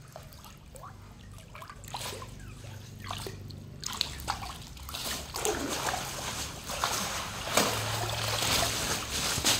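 Water splashing and sloshing as a fine-mesh net is gathered by hand in shallow water, growing louder and busier from about four seconds in, with water streaming and dripping off the net as it is lifted out near the end.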